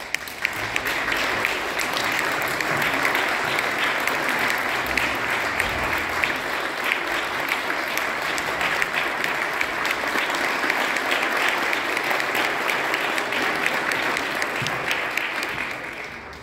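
Audience applauding: a dense, steady patter of many hands clapping, fading away near the end.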